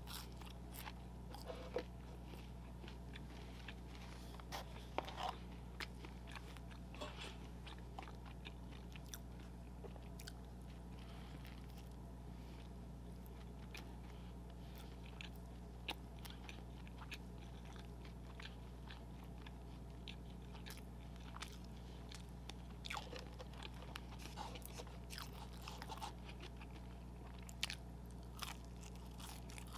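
A person biting and chewing fast food close to the microphone, in mukbang style. Irregular short mouth clicks are scattered throughout, more of them near the start and toward the end, over a steady low electrical hum.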